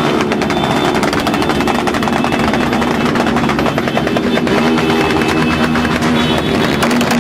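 Dozens of small street motorcycles riding slowly past in a dense procession, their engines running together in a steady loud drone.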